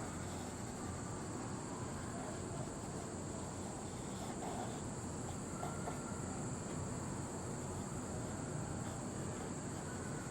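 Steady background hiss with a constant high-pitched ring, unchanging throughout.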